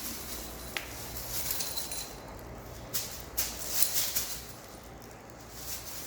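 Irregular rustling and scraping with a few sharp clicks, from pet cats moving about and playing.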